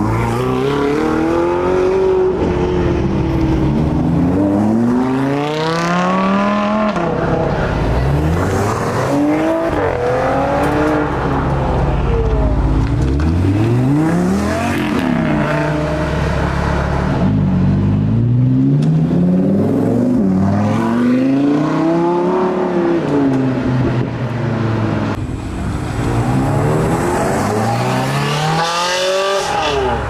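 Supercar engines revving hard as several cars accelerate away one after another, the engine note climbing and dropping again and again as the drivers rev and shift gears.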